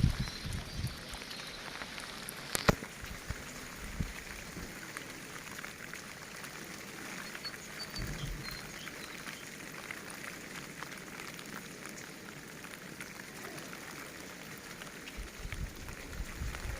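Steady rain falling, an even hiss with many small drop taps, and one sharp tap about two and a half seconds in.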